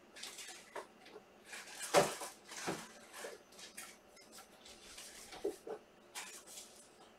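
Trading card packs and cards being handled: irregular rustling and crinkling of pack wrappers and card stock, with a sharper snap about two seconds in.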